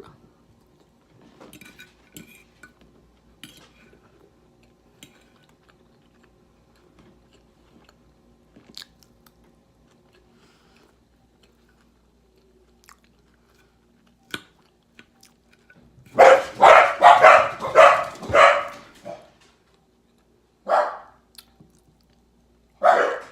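A dog barking: a rapid string of about eight barks about two-thirds of the way in, then two single barks a few seconds apart. Before that, only faint chewing and mouth clicks.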